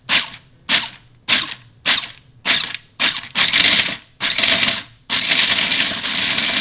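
Food processor pulsed in short bursts about every half second as it chops pistachio nuts in heavy cream, the last two pulses longer. About five seconds in it runs continuously to blend the mixture smooth.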